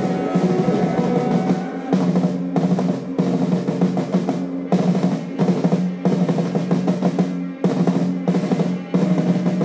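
Live free-improvised noise rock: drum kits playing dense, irregular rolls and crashes over a steady held low droning note.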